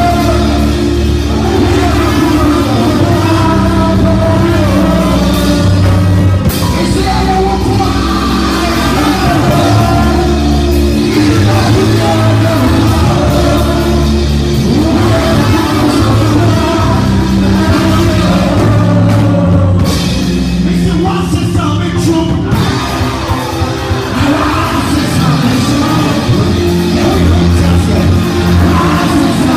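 Live, amplified church praise music: a band with a prominent bass line changing notes every second or two, and a man singing through a microphone over it.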